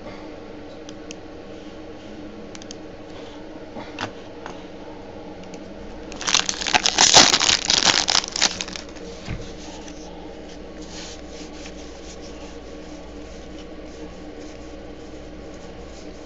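Foil wrapper of a football trading-card pack crinkling and tearing as it is ripped open by hand. It is a loud burst starting about six seconds in and lasting about two and a half seconds.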